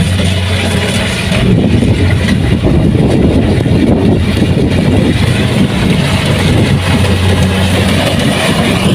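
Kubota rice combine harvester running steadily under load, a constant low engine hum with mechanical clatter over it.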